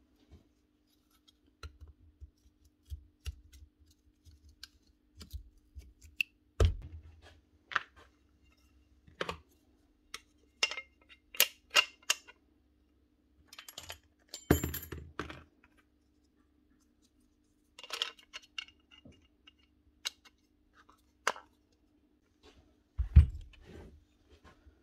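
Irregular clicks, taps and knocks of metal and plastic rotary-hammer parts being handled and fitted together on a workbench, with a few louder knocks, the loudest near the end, over a faint steady hum.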